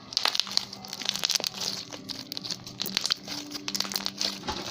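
Slime being stretched and handled, giving a dense run of small crackles and sticky pops.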